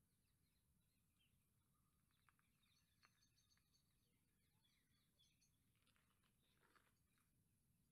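Near silence outdoors, with faint, scattered bird chirps and a few soft clicks.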